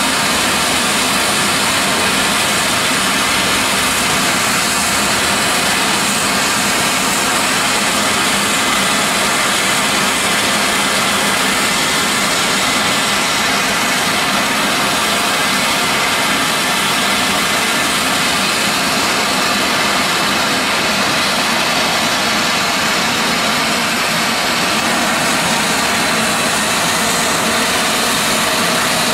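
A standing steam tram locomotive venting a jet of steam sideways at track level: a loud, steady hiss that runs on without a break.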